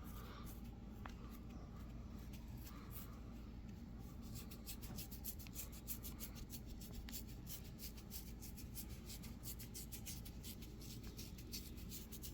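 Hands massaging a shoulder: fingers rubbing and clawing over skin, a faint, quick run of scratchy ticks that gets busier about four seconds in.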